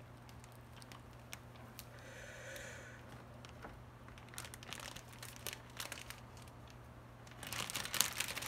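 Flour being poured into a glass Pyrex measuring jug: a faint hiss of falling flour, then scattered light clicks and crinkling that get busier near the end.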